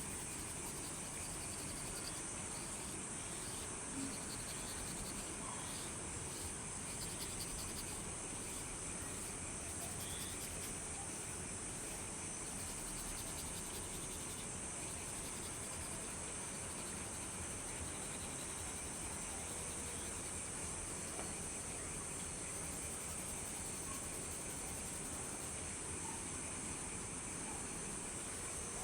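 Crickets chirring steadily in a high, continuous trill, with the even hiss of light rain underneath.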